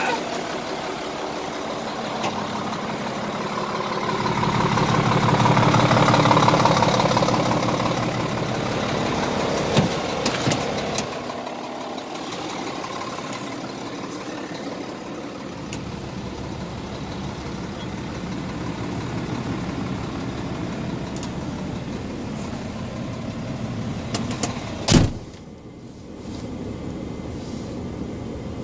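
Scania R450 truck's 13-litre straight-six diesel idling steadily. The hum grows louder about four seconds in and then settles, with a few light clicks around ten seconds and one sharp knock near the end, after which the running sound is duller.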